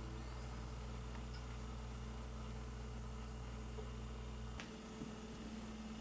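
Steady low hum and hiss of room tone, with a single sharp click about four and a half seconds in, where the hum changes.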